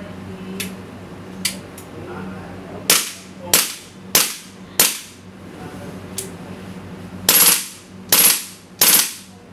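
WE M4 CQB RAS gas-blowback airsoft rifle with an open-bolt system firing: a few light clicks, then four single shots a little over half a second apart, each a sharp crack with the bolt slamming back. Near the end come three short, louder bursts of rapid fire.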